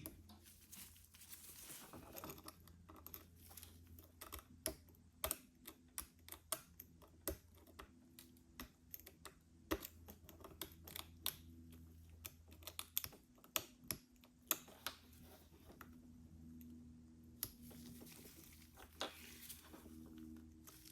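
Faint, irregular light clicks and taps of a pry tool working at the edge of an iPhone SE's back glass, a few each second.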